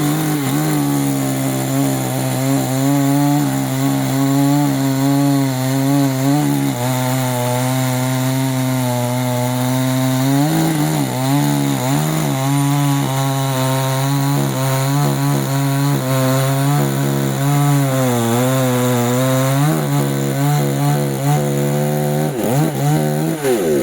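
CanFly two-stroke petrol chainsaw running at high speed, cutting wood: a steady high engine note that wavers under load, sags and picks back up about halfway through, and again near the end.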